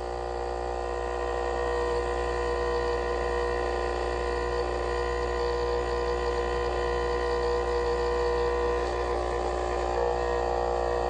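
Dental laboratory vibrator humming steadily as die stone is vibrated into an impression.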